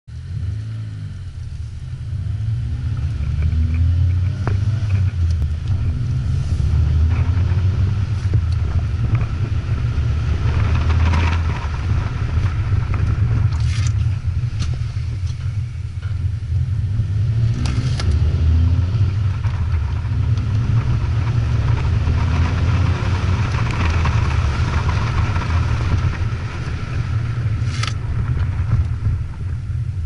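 Honda Fit's 1.5-litre four-cylinder engine through a Buddy Club titanium axle-back exhaust, heard from inside the cabin while driving: a low drone whose pitch climbs several times as the car pulls through the gears. A few sharp clicks sound over it.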